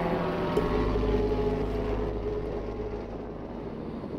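Canadair CL-415 water bomber's twin turboprop engines passing overhead: a steady, slightly whining drone over a low hum, fading gradually in the last couple of seconds.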